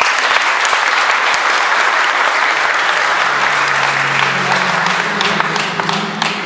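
Applause from a group of people clapping, starting suddenly and thinning out near the end.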